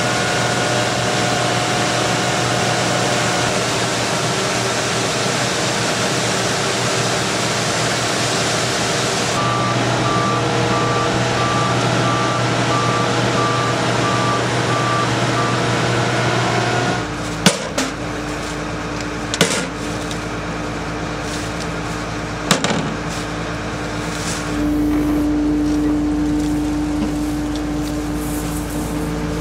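Case IH 6088 Axial-Flow combine harvester running in maize, a loud steady machine drone. A regular beeping sounds for several seconds in the middle, and a few sharp knocks come later as the drone changes.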